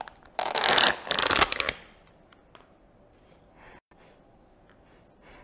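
Thin plastic lid of a takeaway bowl being peeled off, a loud crinkling and crackling in the first two seconds, then only a few faint light clicks.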